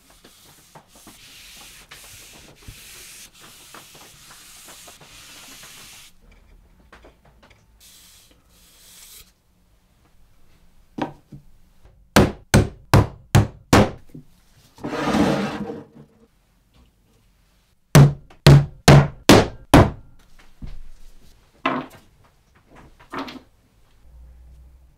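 Cloth rubbing over a wooden rail, then two runs of about six quick hammer blows, roughly three a second, driving small nails into the wooden side rail. A short rasping sound comes between the runs, and a few lighter taps follow near the end.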